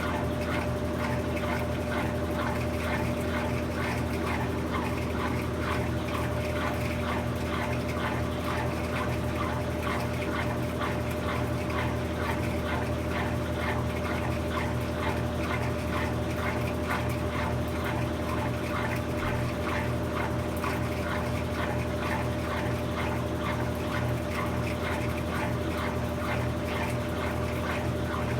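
Brastemp 17 kg BWK17 washing machine running through its quick cycle: a steady motor hum with a constant churning noise over it, unchanging throughout.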